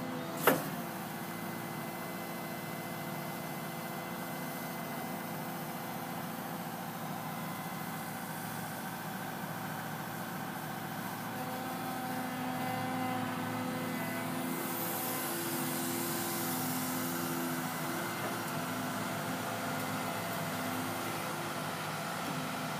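CAT 314E excavator's diesel engine running steadily while the machine works its hydraulics, with several held tones over the engine hum. A single sharp knock comes about half a second in, and a high hiss rises for a few seconds around the middle.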